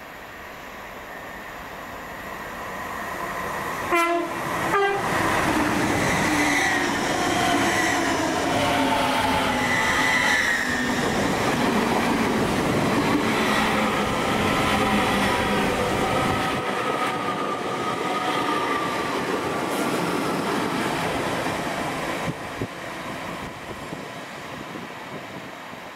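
LNER Class 801 Azuma high-speed train running through the station without stopping: the noise builds as it approaches, with two short horn blasts about four seconds in. Then comes a loud rush of wheels on rail with falling whining tones as the train passes, fading as it draws away near the end.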